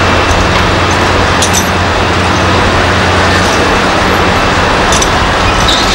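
Heavy diesel construction machinery running steadily, a constant low drone, with a couple of faint clinks.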